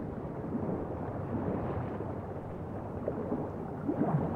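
Underwater ambience: a steady low rushing noise, without any tune or voice.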